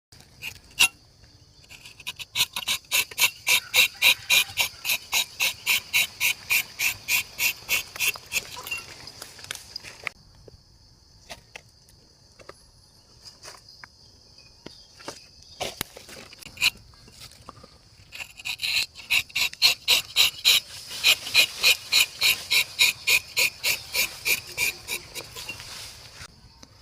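Insects calling: a rhythmic, high-pitched pulsing call at about four pulses a second that swells, fades, and starts again about halfway through, over a steady high buzz. A few scattered light clicks fall in the quieter stretch between the two runs.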